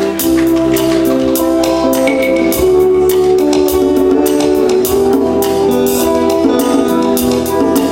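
Instrumental passage of a rock song: guitar with a drum kit keeping a steady beat, no vocals.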